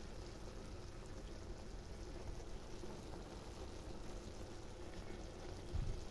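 Pot of chicken adobo simmering on a gas stove: a steady low bubbling, with a brief soft thump near the end.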